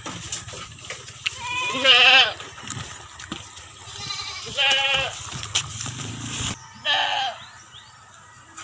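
Goats bleating: three separate wavering bleats, the loudest about two seconds in.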